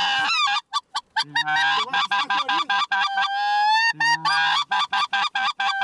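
Goose mouth calls worked as a pair to imitate greater white-fronted geese: rapid high yelps several a second, a long wavering drawn note in the middle, and two short low moans.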